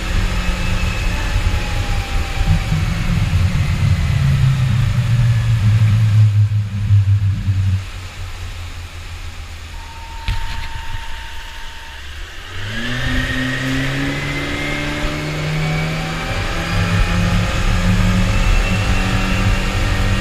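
Twin Suzuki outboard motors running at speed. About eight seconds in the engine note falls away and goes quieter, then some four seconds later the engines rev back up with a rising pitch and settle into a steady run.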